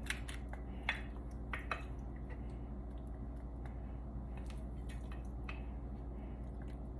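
A metal spoon scooping ground taco meat into a taco shell: a few soft clicks and wet squishing sounds, mostly in the first two seconds, over a steady low hum.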